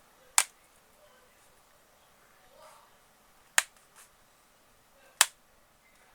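Three sharp, separate clicks: one just after the start, one about three seconds later, and one a second and a half after that.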